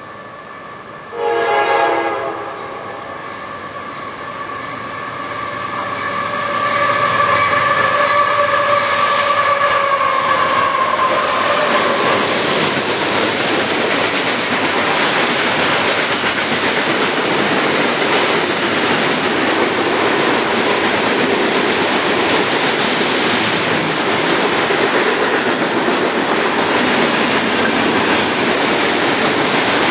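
Freight train locomotive horn: a short blast about a second in, then a long held chord that drops in pitch as the locomotive passes close by. The freight cars then pass at speed with a loud, steady rumble and wheel clatter on the rails.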